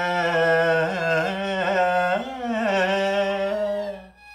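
A man's voice singing the last phrase of a Carnatic devi kriti: held notes that waver and slide in pitch with Carnatic ornaments. The singing fades out about four seconds in.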